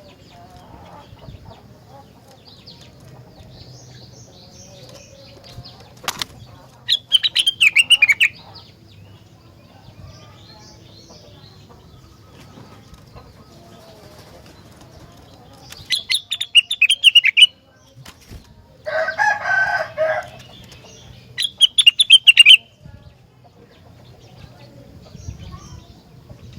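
A rengganis songbird singing in three loud bursts of rapid, high chattering notes, with fainter chirps between them and a short rasping burst a little after the middle.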